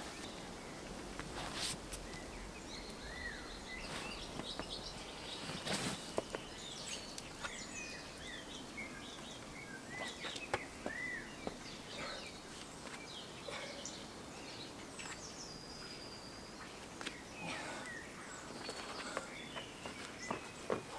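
Woodland ambience with small birds chirping at intervals, short arched calls and thin high notes scattered throughout. Between them come a few brief knocks and scrapes of a climber's shoes and hands on the rock, the strongest about six seconds in.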